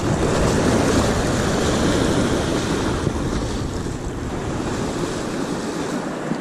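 Sea surf washing on the beach: a broad rush of breaking water that swells about half a second in and slowly eases off, with wind buffeting the microphone.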